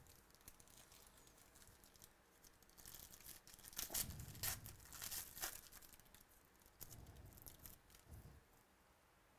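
Foil wrapper of a trading-card pack being torn open and crinkled by hand, in irregular crackling bursts, loudest in the middle.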